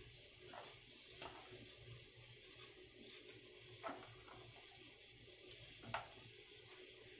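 Pot of water heating on a gas burner, close to the boil: a faint steady hiss with a few small ticks and pops scattered through.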